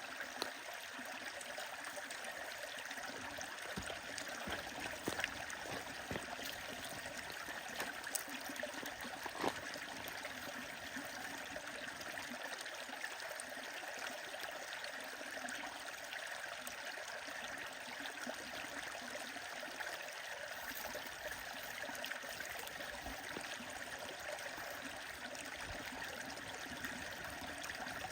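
Stream flowing steadily, with scattered sharp crackles and pops from a wood fire.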